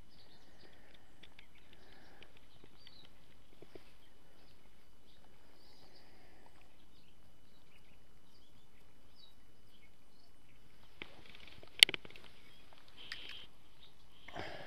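Quiet pond-side ambience with scattered faint bird chirps and a thin steady high tone that stops about eleven seconds in. A single sharp click comes near the end.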